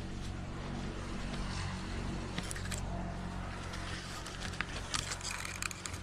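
Hands, arms and clothing rubbing and scraping against the bark of a tree trunk during a barehanded climb, with sharp scratches and clicks coming thicker in the second half. A steady low hum runs underneath.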